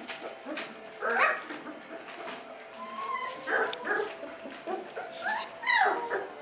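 19-day-old Belgian Malinois puppies yelping and whimpering in short high calls, the loudest about a second in and again near the end.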